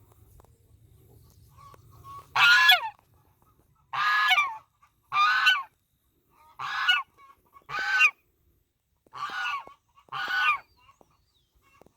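Gander (male goose) honking seven times, loud calls roughly a second apart, starting about two seconds in.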